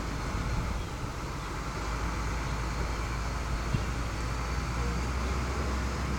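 Heavy diesel machinery running steadily with a low, even rumble, as during a truck being towed by a loader, with one brief click a little past halfway.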